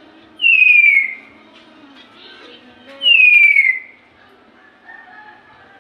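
A lory (nuri parrot) giving a loud whistled call twice, each one sliding down in pitch over under a second, about two and a half seconds apart.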